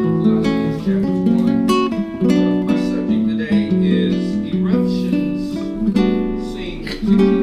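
Acoustic guitar strumming chords that change every half second or so.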